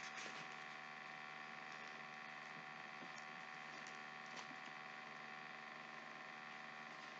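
Faint rustling and flicking of a paperback's pages being leafed through, over a steady low electrical hum.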